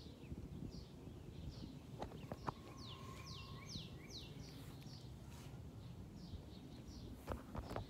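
A bird chirping repeatedly in short, high, falling notes about twice a second, with a run of longer downslurred notes about three seconds in. A steady low rumble lies underneath.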